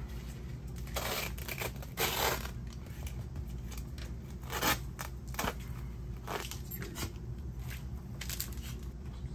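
Scissors cutting a strip off a carpet remnant: scattered cutting strokes at irregular intervals, over a steady low hum.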